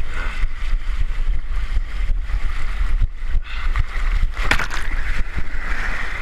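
Rushing, splashing water with heavy wind buffeting the microphone, and one brief sharp splash-like sound about four and a half seconds in.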